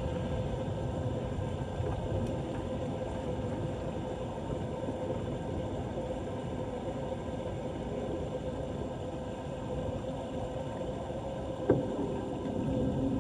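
Floodwater flowing and sloshing in a steady rush, under a steady hum, with one sharp knock near the end.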